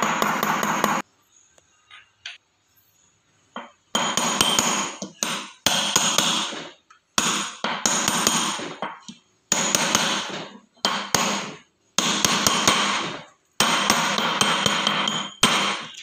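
Rapid hammer taps driving a new 6204 ball bearing into its bearing housing in a front-load washing machine, worked in from all sides so it seats evenly. The strikes come in quick bursts with a metallic ring, separated by short pauses, after a quiet spell of about three seconds near the start.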